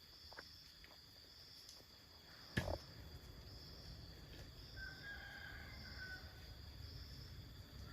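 Insects, crickets or cicadas, chirring steadily in a faint high drone. A single sharp knock comes about two and a half seconds in.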